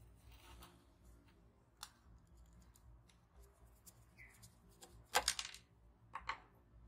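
Scattered small clicks and scrapes of tools and parts being handled on a workbench. The loudest is a quick cluster of clicks about five seconds in and another pair just after six, over a faint low hum.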